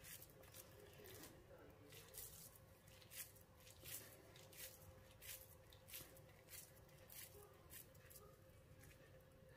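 Faint, soft squishing and rubbing of hands rolling cottage-cheese (tvorog) dough in flour, in short irregular strokes a few times a second, over a faint steady hum.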